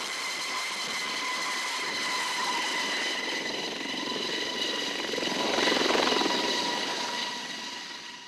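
Aérospatiale Dauphin helicopter lifting off and flying away: a steady high turbine whine over rotor rush. It swells loudest a little past the middle, then fades as it departs near the end.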